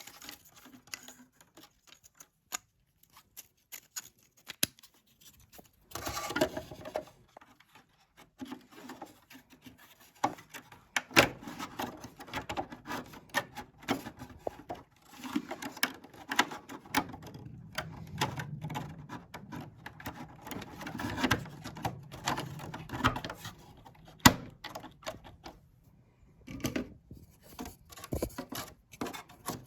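Irregular clicks, taps and scraping of hand tools and small parts being handled during a repair, with stretches of rubbing and two sharper knocks, one about eleven seconds in and a louder one later on.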